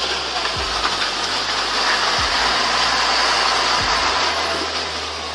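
Heavy tanker truck's diesel engine running steadily as the tractor-trailer manoeuvres at low speed, with a broad steady noise over it.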